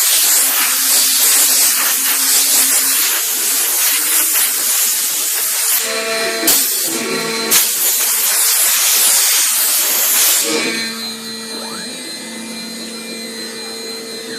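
CNC router spindle running and cutting MDF board: a loud, steady hiss over a constant whine. About ten seconds in the hiss drops away, leaving a quieter, steady whine.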